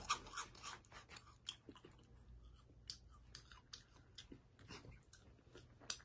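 A person chewing a crunchy puffed corn snack: faint, irregular crunches and clicks.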